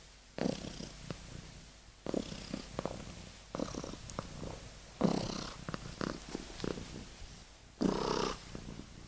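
Sleeping kitten snoring: about five rasping breaths, each starting loud and trailing off.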